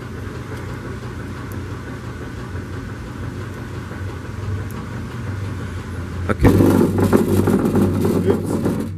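Car audio subwoofer in a wooden box playing bass-heavy music through an amplifier and head unit with the bass boost on. About six and a half seconds in, the volume jumps and it plays much louder until it is cut back just before the end.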